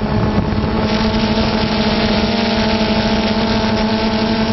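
Multirotor drone's motors and propellers humming steadily, a few even tones over a hiss with wind noise on the microphone; a brighter hiss comes in about a second in.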